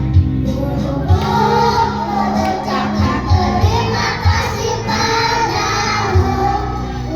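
A choir of young kindergarten children singing together over music with a steady low beat.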